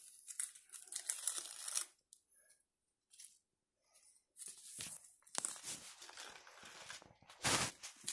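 Crisp lettuce leaves crinkling and rustling as they are handled and laid out by hand. The sound comes in short bursts, stops for about two seconds, then starts again, with the loudest crinkle near the end.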